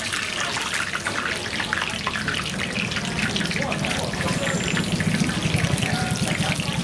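Hot oil sizzling steadily with a dense crackle as food fries.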